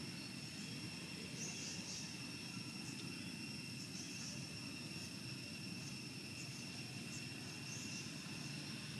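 Outdoor ambience: insects holding a steady high-pitched drone, over a low steady rumble, with a few faint short chirps about a second and a half, four and eight seconds in.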